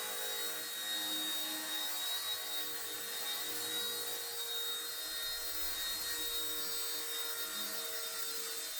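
Firefox C129 flybarless micro RC helicopter in flight, its small electric motors and rotor blades giving a steady whine with several held tones.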